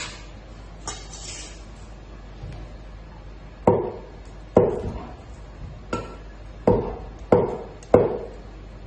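Chinese cleaver cutting firm tofu into cubes, the blade knocking down onto a plastic chopping board. About halfway in come six sharp, unevenly spaced chops.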